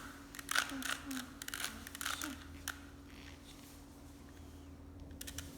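Plastic Rubik's cube layers being twisted by hand: a quick run of light clicks and rattles that thins out and stops a little under three seconds in. A faint steady hum lies underneath.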